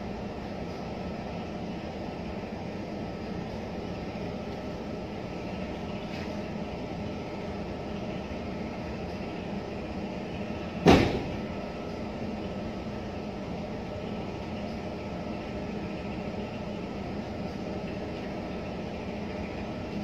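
Steady background hum, with one sharp knock a little past halfway that rings briefly.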